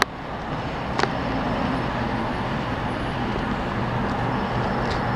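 Steady road-vehicle noise with a low hum, broken by a sharp click at the start and another about a second in.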